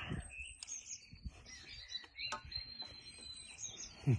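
Birds chirping faintly in the background while a man eats a spoonful of food, with soft mouth sounds and a few faint clicks. Near the end his voice gives one short sound that falls steeply in pitch.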